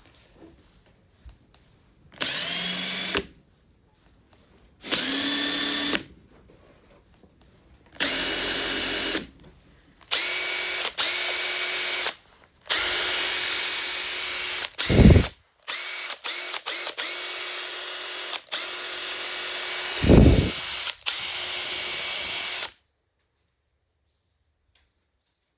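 Makita TP131D cordless 4-mode impact driver spinning without load in repeated trigger pulls, about six bursts of a high motor whine that rises in pitch as each starts. The last burst is the longest, and twice there is a brief low rumble.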